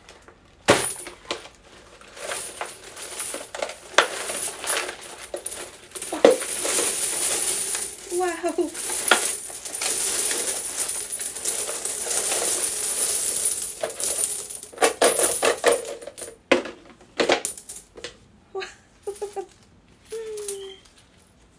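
Hundreds of metal coins (New Taiwan dollar pieces) pouring and shaken out of a plastic piggy bank onto a heap on the table: scattered clinks at first, then a dense, continuous jingle of coins spilling onto coins for several seconds in the middle, then more short rattling bursts.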